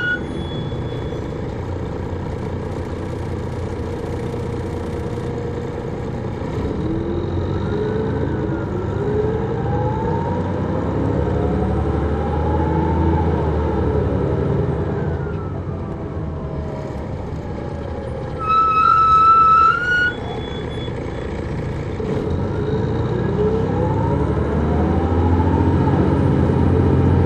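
An MCI D4000 coach's Detroit Diesel Series 60 engine and Allison B500 automatic transmission heard from on board, pulling under load. The whine rises with speed and drops back at the gear changes, and it grows louder near the end. About two-thirds through, a loud high-pitched tone sounds for about a second and a half.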